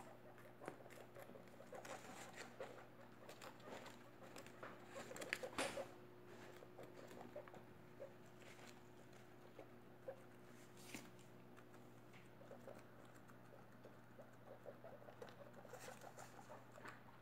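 An adult guinea pig and a newborn pup chewing lettuce leaves: faint, irregular crunching and rustling clicks, busiest about five to six seconds in. A faint steady hum runs underneath.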